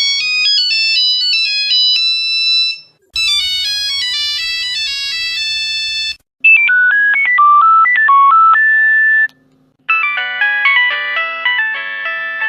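Four different Nokia mobile phone ringtones played one after another, each a short electronic melody of quick stepping notes, with brief silences between them.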